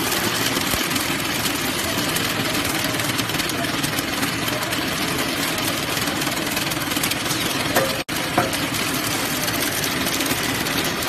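Paper drinking straw counting and packing machine running: a steady mechanical clatter with fast, fine ticking. About eight seconds in come two sharper clicks, with the sound cutting out for an instant between them.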